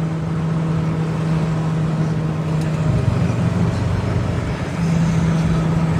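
A motor or engine running with a steady low hum over background noise. The hum drops away for a couple of seconds midway and then comes back.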